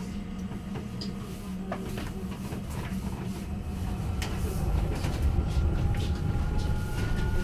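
Heuliez GX337 E battery-electric bus under way, heard inside the cabin at the front: a low road-and-body rumble with a faint electric-drive whine rising slowly in pitch, and scattered small rattles and clicks. The rumble grows louder after about four seconds.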